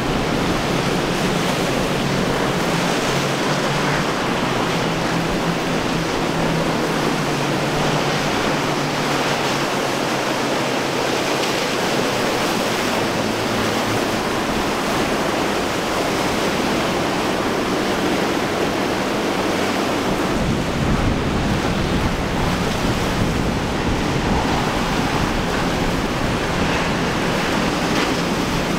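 Rough surf and breaking chop with wind buffeting the microphone, a steady rushing noise. Underneath, for roughly the first two-thirds, runs a faint low drone of outboard engines; after that a deeper wind rumble on the microphone takes over.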